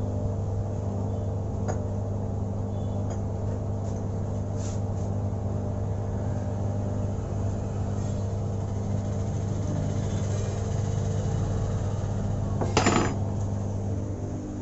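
A steady low mechanical hum, with one sharp metallic clank about thirteen seconds in.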